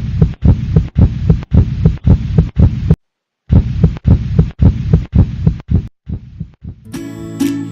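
Recorded heartbeat: deep paired lub-dub thumps about twice a second, with a brief break about three seconds in, fading out after about six seconds. Plucked ukulele music starts near the end.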